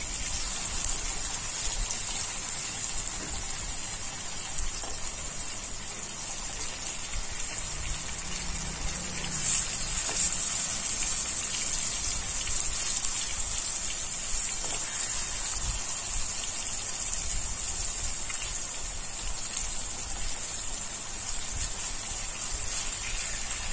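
Rohu fish steaks sizzling steadily in hot oil in a kadai, a fine even crackle as the turned-over pieces fry on their second side.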